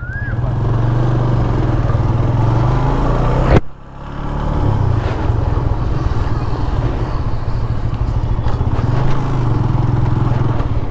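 Single-cylinder engine and stock exhaust of a 2010 TVS Apache RTR 180 motorcycle running under way, a steady low pulsing note. The sound breaks off sharply about a third of the way in and picks back up within a second.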